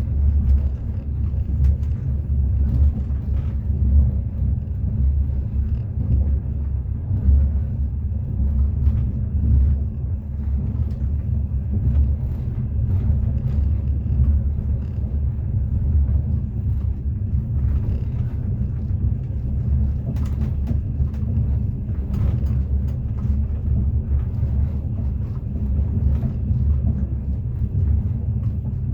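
Passenger train running, heard from inside the carriage: a steady low rumble of wheels on the rails, with scattered short clicks and knocks.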